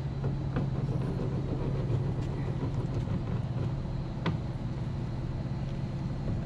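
Steady low mechanical hum, like a running engine, with a couple of faint clicks of small hardware being handled.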